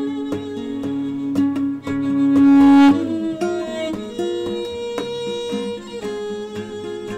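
Instrumental background music with a steady beat and long held notes; the loudest held note swells about two to three seconds in.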